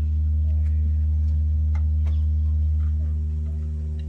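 Loud, steady low electrical hum with a stack of overtones coming through a street PA system, with a few faint clicks over it. The hum swells at the start and eases near the end. It is the kind of noise fault the crew are tracing on the mixer channel by channel.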